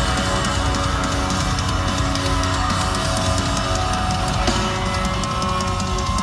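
Live rock band playing loud, with electric guitars and a drum kit, heard from the audience at a concert. A long held note comes in about two-thirds of the way through.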